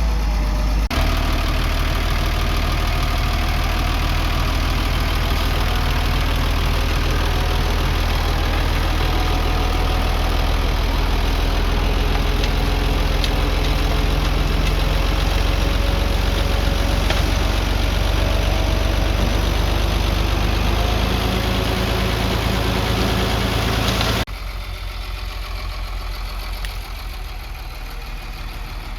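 Diesel engine of heavy earthmoving machinery running steadily. The sound changes abruptly about a second in, and again near the end, where it becomes quieter.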